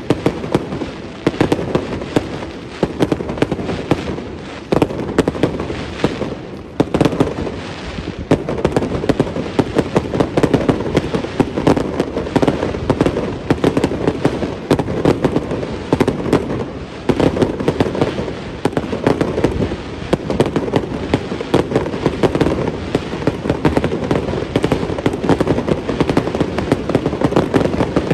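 Aerial fireworks display, shells bursting in a dense barrage of many overlapping bangs in quick succession.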